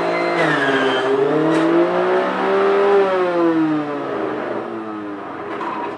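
Electric blender running as it chops oregano leaves, its motor pitch dipping, climbing and then sagging as the load in the jar shifts.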